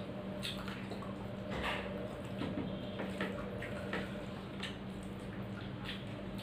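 Eating sounds: wet chewing and mouth smacks, with soft squishes of fingers mixing rice on a plate, as short scattered clicks over a steady low hum.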